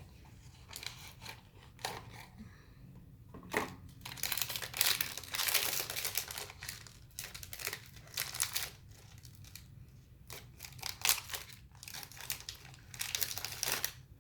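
Blind-box packaging being torn open and crinkled by hand, in irregular bursts that are busiest from about four to nine seconds in.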